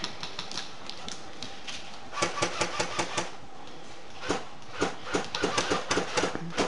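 Airsoft guns firing in rapid bursts: a burst of about eight quick shots a little after two seconds in, then more scattered shots and short bursts through the rest.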